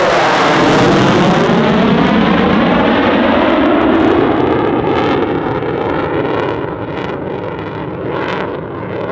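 Polish Air Force F-16C Fighting Falcon's Pratt & Whitney F100 turbofan running at high power in a display pass, with a sweeping, phasing quality. The noise is loud at first and fades steadily over the second half as the jet moves away.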